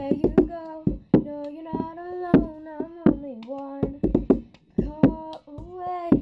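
A girl singing while playing the cup-song rhythm: hand claps and a plastic cup tapped, lifted and knocked down on a hard surface, many sharp hits under the melody.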